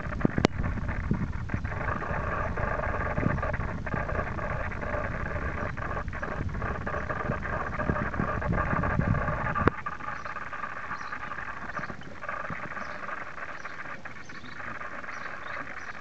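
Small aviary birds chirping, short high calls repeating through the second half, over a steady background din. A low rumble under it drops away with a click about ten seconds in.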